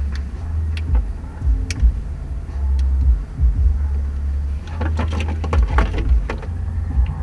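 Handling noise from air-suspension hoses and wiring being worked by hand: a low rumble with scattered clicks and knocks, and a burst of crinkly plastic rustling about five to six seconds in as the lines are wrapped together.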